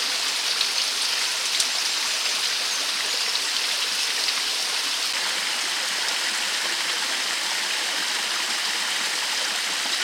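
Mountain river water rushing steadily over rocks, an even hiss of flowing water.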